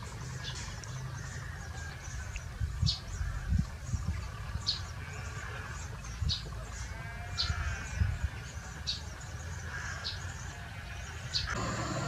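Eurasian tree sparrows chirping: short, high chirps about once a second, over a low rumble with a few dull thumps. A steady high buzz comes in near the end.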